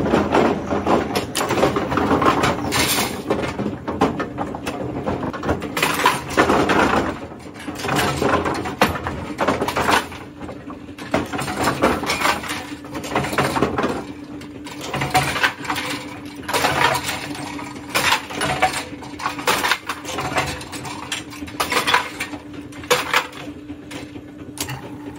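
Vintage AMF 82-30 bowling pinsetter running through its set cycle: a steady motor hum under repeated metallic clanks and rattles from the setting deck, with bowling pins clattering.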